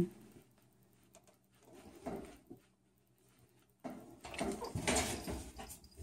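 Near silence, then from about four seconds in a run of soft scraping and rustling as a cat shifts and scrabbles in the narrow gap behind a washing machine.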